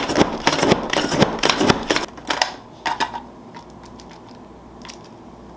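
Plunger-style hand food chopper being pumped, chopping pecans: a rapid run of plastic clacks, about four a second, that stops after about two and a half seconds. A few single clicks follow as the chopper is opened.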